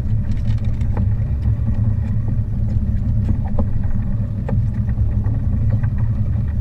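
Small boat's outboard motor running with a steady low rumble, with a few faint clicks over it.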